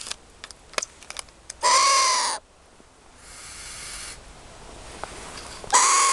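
Long-eared owl giving two harsh, rasping screeches, each under a second long, one about two seconds in and one near the end. A few sharp clicks come in the first second and a half.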